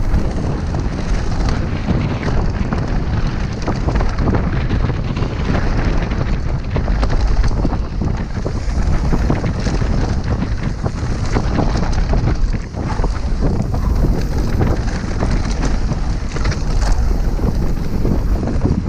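Mountain bike descending fast on a loose gravel and dirt trail: steady wind roar buffeting the helmet camera's microphone, with constant clatter of tyres on stones and the bike rattling over bumps.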